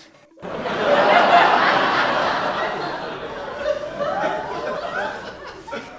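People laughing hard, breaking out suddenly about half a second in and tailing off near the end.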